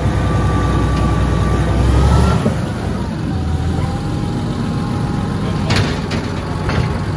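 Komatsu bulldozer's diesel engine running, with a steady whine over it; the engine note drops about two and a half seconds in, and there is a sharp knock near the end.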